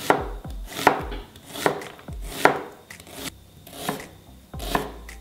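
Chef's knife slicing an onion into half-rings on a plastic cutting board: each cut a crisp crunch through the onion ending in a knock of the blade on the board, in a steady rhythm of a little more than one cut a second.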